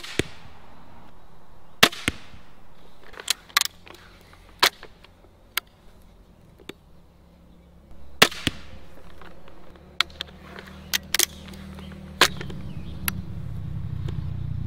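EK Archery Cobra System Adder crossbow with its 180-lb limbs being cocked and fired repeatedly through a five-bolt magazine: a series of sharp snaps and clacks, several coming in quick pairs, with bolts striking a foam block target.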